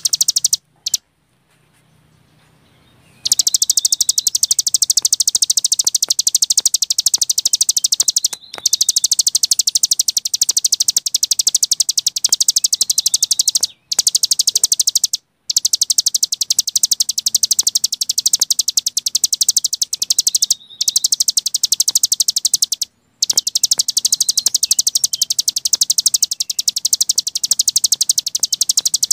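Cici gunung songbird singing: long bouts of very rapid, high-pitched chattering trills, broken by brief pauses, after a near-quiet gap of about two seconds at the start.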